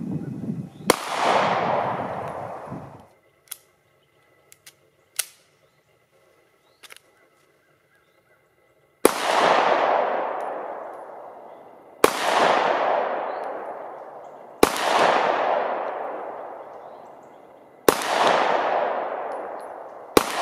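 Shots from a DWM commercial Luger pistol in .30 Luger (7.65 Parabellum), each followed by a long fading echo. One shot comes about a second in. After a quiet stretch with a few faint clicks, five more follow at intervals of two to three seconds.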